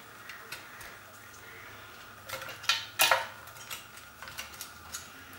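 Light clicks and knocks of parts being handled and seated into a Technics turntable chassis during reassembly, with a few louder knocks a little over two seconds in.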